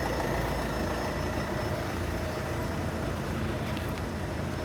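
Steady city traffic noise: a continuous low rumble of road vehicles with no single standout event.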